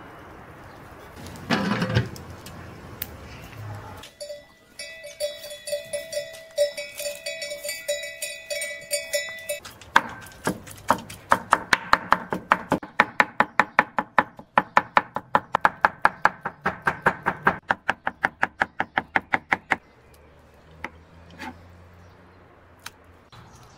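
A large kitchen knife chopping cooked spinach on a wooden board, in quick regular strokes of about four to five a second for around ten seconds. Before that comes a single loud knock, then a few seconds of a wavering call over high chirping.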